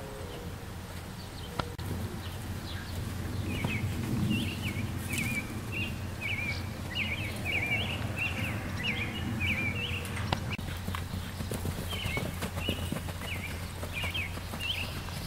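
Hoofbeats of Quarter Horses trotting and cantering loose on soft dirt arena footing, over a steady low rumble. A high chirping starts about three seconds in and repeats roughly twice a second.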